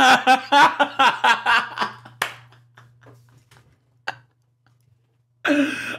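A person's voice, broken by quick sharp sounds, for about two seconds. Then a quiet stretch over a low steady hum, with a single click about four seconds in.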